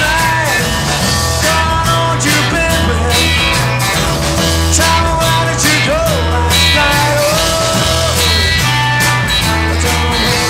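Live blues-rock band playing a repeating bass-and-guitar riff, with drums and bending lead notes over it.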